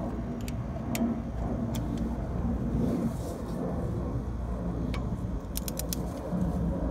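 Torque wrench ratcheting while an injector is tightened toward 30 lb-ft: scattered metallic clicks, with a quick run of four or five clicks near the end, over a steady low rumble.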